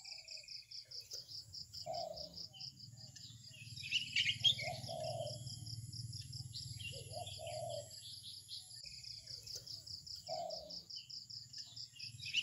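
A cricket chirping in a rapid, even pulse, with birds twittering faintly and a lower call repeating every few seconds over a steady low hum.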